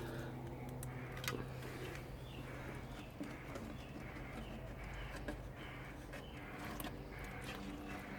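Small wet clicks and squelches of hands sifting through mud and debris in a recovered box, over a steady low hum.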